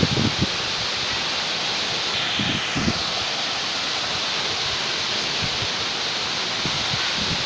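Waterfall: a steady, even rush of falling water, with a few brief low bumps near the start, about two and a half seconds in and near the end.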